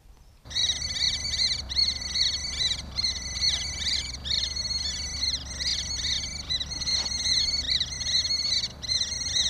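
Fast, high-pitched chirping from a calling animal, repeated in a regular rhythm of roughly one-second phrases, starting about half a second in.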